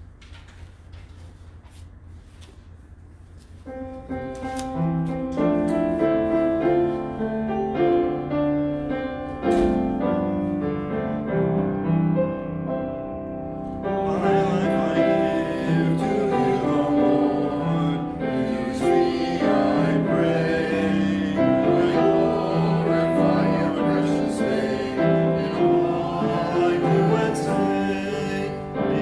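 Hymn music played on a keyboard instrument, starting about four seconds in after quiet room tone. The playing grows fuller about fourteen seconds in.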